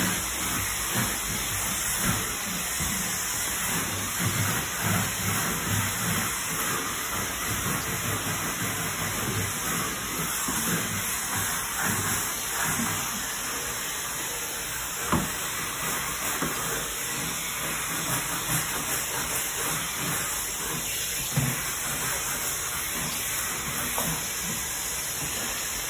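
Steam cleaner hissing steadily as its brush head is scrubbed back and forth over marble floor tile, with two sharp knocks in the second half.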